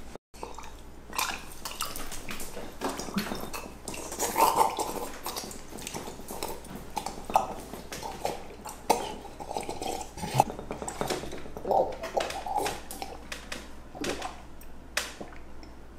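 Drinks being gulped down fast from glasses: an irregular run of swallowing gulps, mouth clicks and smacks, with glass clinks.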